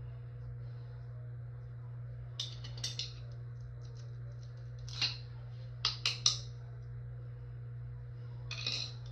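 Several short, light clinks of small hard objects, in small clusters of two or three, over a steady low hum.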